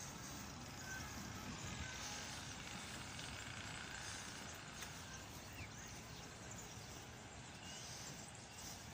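Faint, steady outdoor background noise, with a few faint short bird chirps in the middle.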